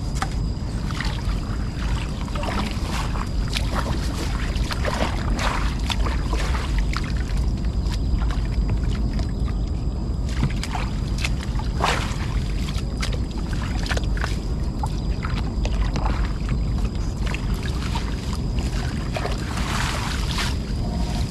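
Water splashing and dripping around a small boat in a swamp, in irregular bursts that are strongest about twelve seconds in and again near the end. A steady low rumble runs underneath, with two faint steady high tones.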